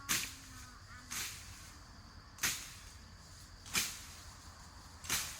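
Repeated sharp swishing strokes, about one every 1.3 seconds, each quick and fading fast.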